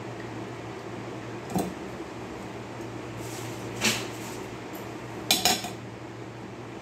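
Metal strainer and utensils clinking against a stainless steel pitcher: one clink about a second and a half in, another near four seconds, and two quick ones just after five seconds, over a steady low hum.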